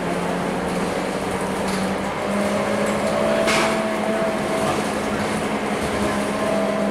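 Scania K230UB bus's engine and drivetrain heard from inside the cabin while driving, a steady hum with a whine above it. The engine note rises a little about two seconds in. A short hiss comes about halfway through.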